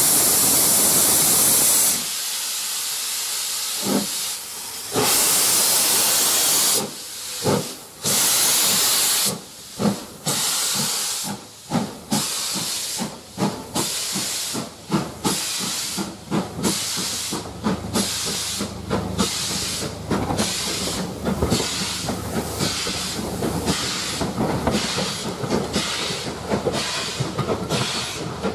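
LMS Black Five two-cylinder 4-6-0 steam locomotive starting away: a loud hiss of steam from the cylinder drain cocks, then exhaust chuffs that start slow and irregular and quicken to about one and a half a second as the train gathers speed.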